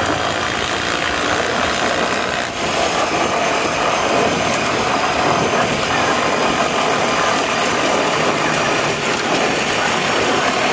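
Off-road vehicle engine running while riding at speed over a gravel track, mixed with a steady rush of wind and tyre noise.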